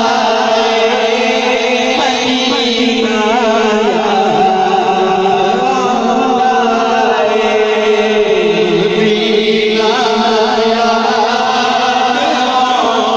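Men reciting a naat, an Urdu devotional poem, in melodic chant through a PA system. A lead voice sings wavering, ornamented lines over a steady held drone.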